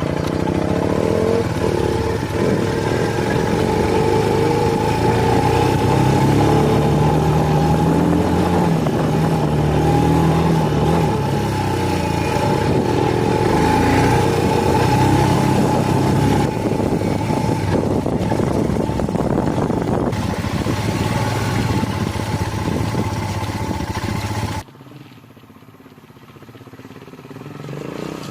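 Motorcycle engine running under way, its pitch rising and falling with the throttle, over rushing noise. About 25 seconds in it cuts off abruptly to a much quieter background that slowly builds again.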